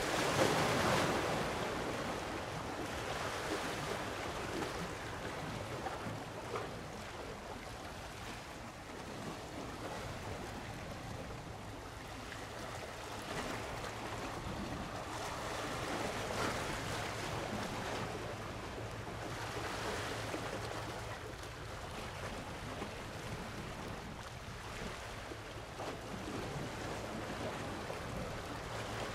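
Waves washing in slow surges that rise and fall every few seconds, the biggest right at the start, with wind on the microphone and a steady low hum underneath.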